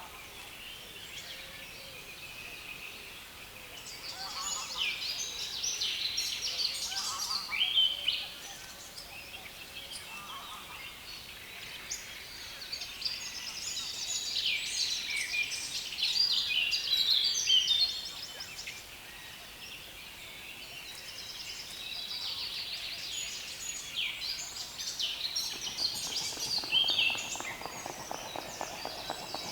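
Songbirds singing from a reed bed: loud, dense, chattering song in overlapping bouts of a few seconds each, over a steady outdoor background hiss.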